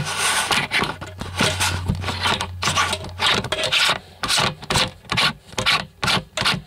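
Fisheye lens being fitted onto the camera by hand: scratchy rubbing and scraping of the lens and fingers against the camera body, close to the microphone. The strokes come irregularly at first, then about twice a second in the second half.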